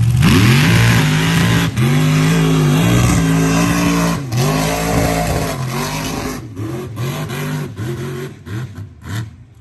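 Mega mud truck launching at full throttle from the start line: the engine note climbs, dips and climbs again twice, then fades as the truck pulls away down the dirt track.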